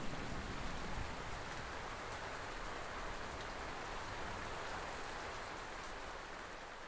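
Steady rain falling, an even hiss of drops that slowly fades toward the end.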